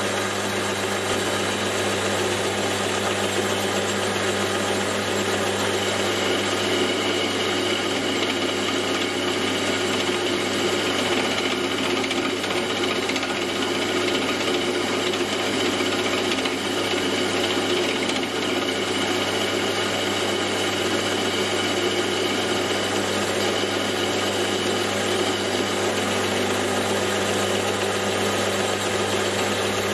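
Metal lathe running steadily under power, turning a clamp's hinge pin down to size with a steady hum.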